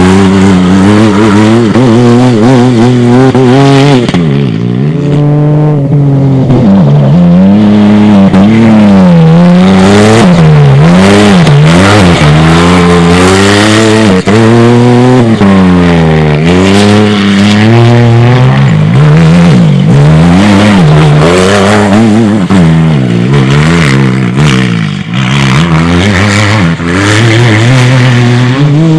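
Rally-raid car engine revving hard, its pitch climbing and dropping again and again as it runs through the gears, over a loud rush of noise.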